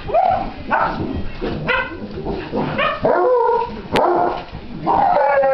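Basset hound puppies barking and yipping in play, a string of about six short pitched calls roughly a second apart, several rising in pitch. A sharp click about four seconds in.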